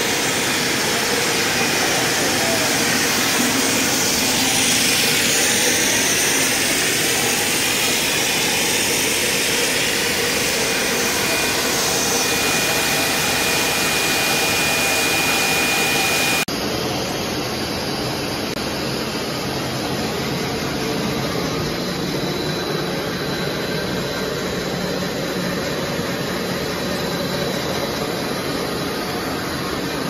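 Steady machinery noise of a running plastic spiral-hose extrusion line, its motors sounding with a thin high whine over it. About halfway through, the sound cuts abruptly to a slightly quieter, duller version of the same machine noise.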